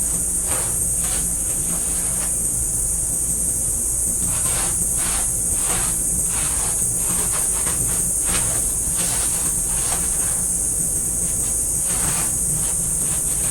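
A steady high hiss runs throughout, with irregular rustling and scraping strokes on top: hands working at kiln materials.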